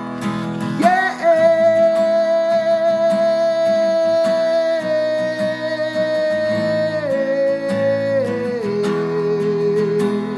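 Worship band playing, with acoustic guitar strumming under a long wordless sung note that begins about a second in and is held, stepping down in pitch three times.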